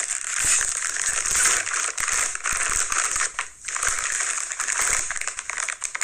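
Bag of Ruffles Queso Cheese potato chips being pulled open and handled, the plastic crinkling and crackling with many small sharp snaps.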